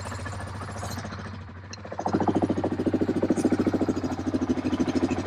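Yamaha Grizzly 700's single-cylinder engine running, with a loud fast, even pulse from about two seconds in after a quieter stretch. Its firing sounds two-stroke-like, which the owner says it has always done.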